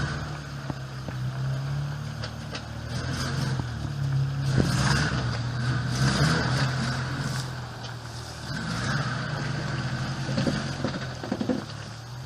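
Off-road 4x4's engine running at low revs, swelling louder and easing off twice, with a sharp knock about halfway through.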